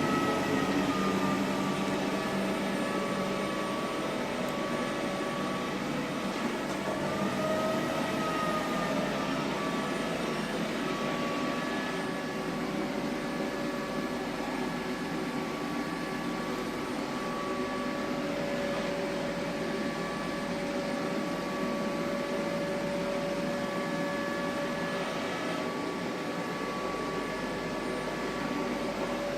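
iClebo Omega robot vacuum running on a carpet, its suction motor in turbo mode, which it switches to on carpet. Its steady whine wavers in pitch during the first several seconds, then holds steady.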